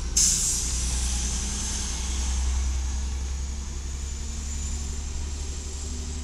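Natural-gas (LNG) engine of a 1996 Volvo garbage truck running with a steady low rumble as the truck moves off down the street. A brief hiss starts just after the beginning and fades within about a second.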